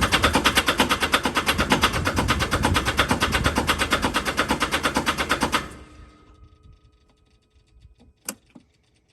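Kubota M62's diesel engine cranking on the starter motor in a fast, even rhythm without firing, a tractor that turns over but won't start. The cranking stops suddenly about five and a half seconds in, and a single sharp click follows near the end.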